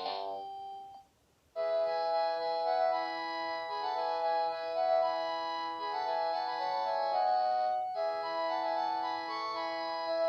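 Panasonic KX-TGDA50 cordless phone handset playing its ringtones. One ringtone of quick notes ends about a second in, and after a short silence the next ringtone starts: an electronic tune of held chords that starts over from the top about eight seconds in.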